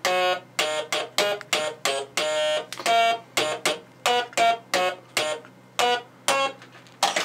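Stylophone, the stylus-played pocket synthesizer, buzzing out a halting tune of about twenty short separate notes, roughly three a second, stepping between different pitches.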